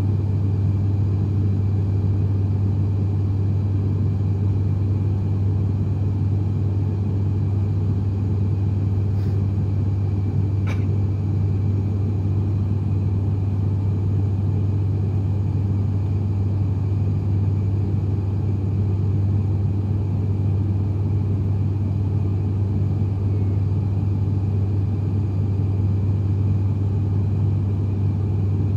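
Steady cabin drone of an ATR 72-500 turboprop in flight, heard from a seat beside the engine: a strong, even low hum from the six-bladed propellers over the running of the turboprop engines.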